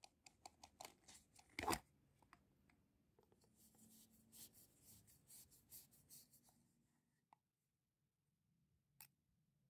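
Paper oil filter element being pulled off its plastic filter cover by hand: a run of small clicks and creaks with one sharp snap a little under two seconds in. Then a rag rubs over the plastic for a few seconds, and a single click comes near the end.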